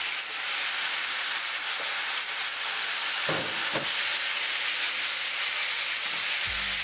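Marinated pork pieces sizzling steadily in hot rendered pork fat in a grill pan as they are turned with a spatula. A low hum comes in near the end.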